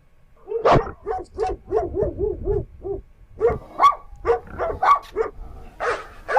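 A dog barking, a quick series of short barks at about three a second, with a brief pause about three seconds in.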